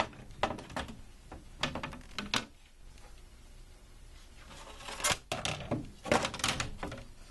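Light clicks and rattles from hands handling the TV's internal parts and loose wire connectors. They come in short irregular bursts, with a pause in the middle.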